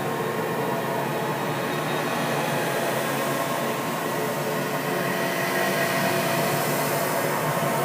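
A steady, dense hiss-like drone with faint held tones running through it, unchanging throughout: a horror ambience sound effect.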